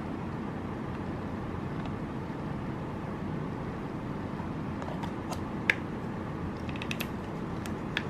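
Small plastic clicks and snaps of a cushion compact case being handled, its inner lid pressed shut, a few sharp clicks in the second half with one louder snap, over a steady low rumble.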